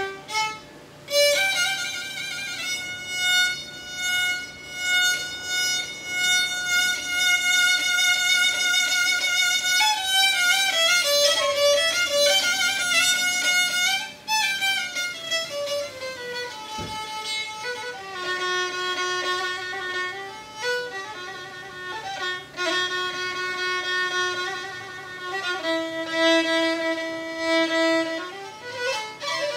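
Black Sea kemençe bowed solo: a Karadeniz folk tune of held notes with sliding pitch between them, starting about a second in.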